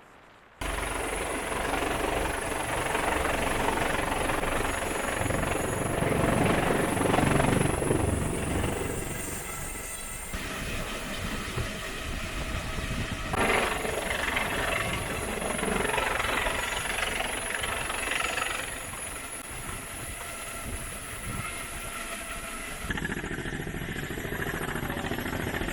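Steady engine noise with wind rumble from military vessel and aircraft footage, starting about half a second in and changing abruptly at several cuts, with a thin high whine through most of it.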